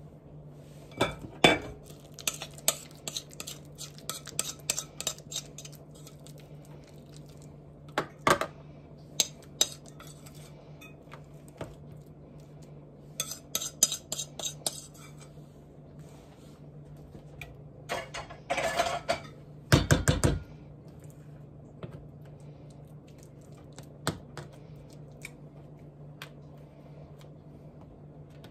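Metal spoon clinking, tapping and scraping against a ceramic mixing bowl and a plastic container as ham salad is spooned out: scattered clinks, a run of quick scrapes about halfway through, and a louder clatter ending in a thump about two-thirds of the way in, over a steady low hum.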